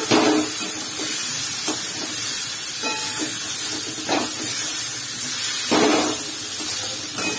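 Fried jackfruit seeds being sautéed in spiced onion-tomato masala in a kadai: a steady sizzle, with a metal spatula scraping and knocking the pan about six times as the seeds are stirred.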